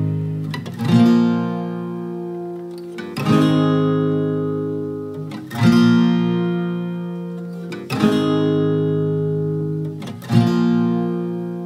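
Background music: strummed guitar chords, one about every two and a half seconds, each left to ring out and fade.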